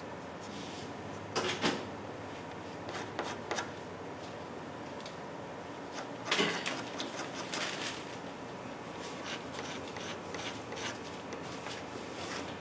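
Pastel pencil stroking and rubbing on paper: short scratchy strokes scattered through, a longer scratchy run about six seconds in, and quicker strokes near the end, over a steady room hum.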